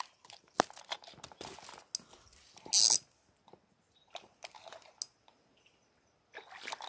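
Close crunching and rustling handling noise as a slingshot-fishing line is pulled in by hand. It comes with scattered sharp clicks and a brief loud hissing rasp about three seconds in.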